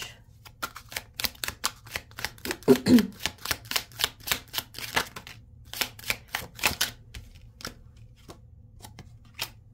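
A deck of tarot cards being shuffled by hand: a quick run of clicks, about five a second, for some seven seconds, then a few scattered taps as cards are laid on the table.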